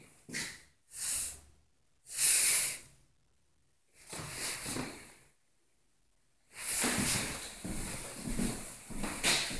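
Handling and movement noise on a phone microphone as it is carried around: several short bursts of hissing rustle with silence between them, then a longer stretch of rustling from a little past the middle.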